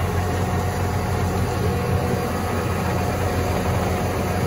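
Tractor engine running steadily under load, heard from inside the closed cab, as the tractor creeps forward pulling on a stretching kinetic recovery rope.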